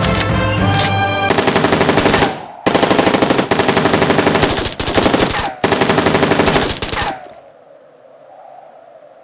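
Music gives way, about a second in, to submachine-gun fire: four long bursts of rapid automatic shots. A fading echo follows the last burst.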